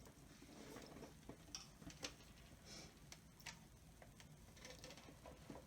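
Near silence with a few faint, light clicks and taps scattered through it.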